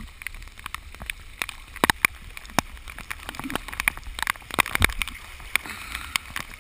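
Floodwater sloshing and gurgling right at a GoPro's waterproof housing, with a low rumble and many irregular sharp ticks of water drops striking the housing.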